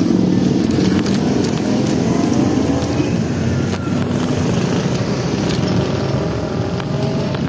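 Steady street noise heard while riding along a road: a continuous rush of wind and road noise, with motor vehicle engines running through it and rising and falling in pitch now and then.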